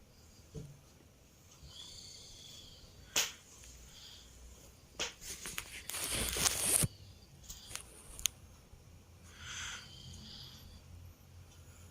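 A sleeping toddler's breathing and snoring, with a faint whistling tone about two seconds in and a breathy snore near the end. A few sharp clicks and a loud rustle lasting under a second, around the middle, are the loudest sounds.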